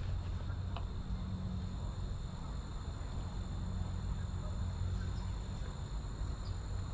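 Steady high-pitched insect drone over a low steady hum, with a few faint clicks.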